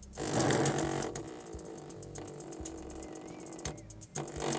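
A small speaker driver, its cone coated and burning, playing music with harsh, rattling distortion over repeating low bass notes; the rattle is loudest just after the start.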